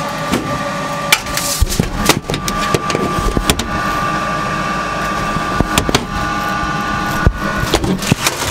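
Metal sheet pans and wire racks knocking and clanking inside a metal food cabinet as trays are handled, over a steady machine hum.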